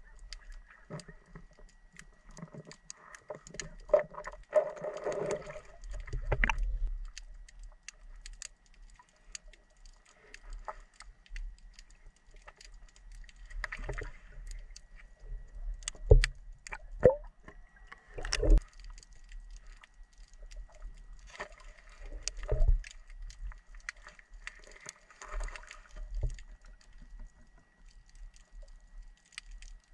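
Muffled water sounds picked up underwater in a shallow river: irregular sloshing swishes as a hand net is swept along the sandy bottom, with scattered sharp knocks and clicks, the loudest about two-thirds through. A faint steady high tone sits underneath.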